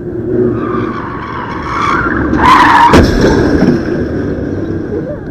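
Car tyres skidding with a building screech, then a sharp crash about three seconds in as a car hits the front of a bus, over a low traffic rumble.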